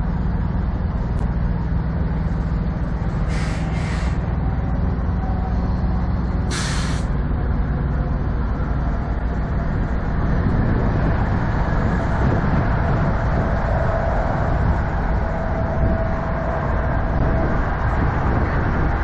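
Semi-truck diesel engines idling with a steady low rumble. Three short, sharp hisses of compressed air from a truck's air brakes come in the first seven seconds.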